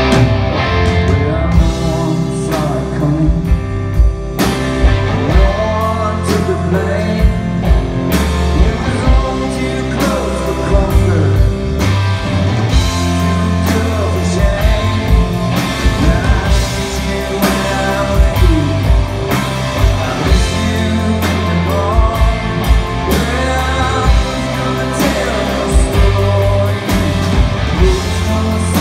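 Live rock band playing electric guitar, bass guitar, drum kit and keyboard, with sung vocals over a steady beat of drum hits.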